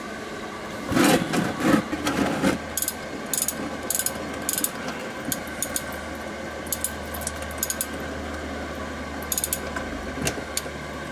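Irregular clicks and rattles of a half-inch ratchet and a cap-style oil filter wrench socket as a Lexus IS250's canister oil filter cap is worked loose. Under them, a space heater hums steadily.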